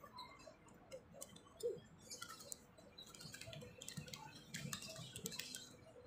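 Paper napkin and small plastic packet crinkling and rustling as they are handled, a run of light, irregular crackles.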